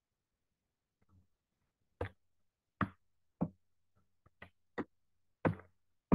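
A series of seven sharp clicks, irregularly spaced about half a second to a second apart, starting about two seconds in.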